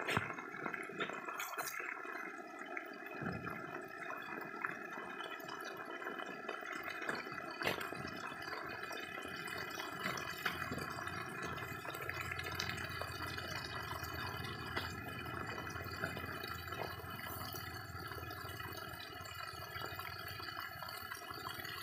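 Water spraying steadily from a small leak in a black plastic water pipe, with a few faint clicks.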